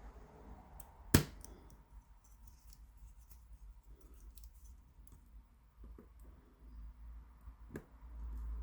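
Small metallic clicks and scratches of a Covert Companion tool picking an 8-pin tubular cam lock, with one sharp, louder click about a second in and a few fainter ticks later.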